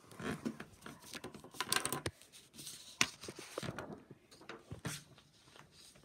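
Sheets of drawing paper being handled and rustled, with irregular short scrapes and taps.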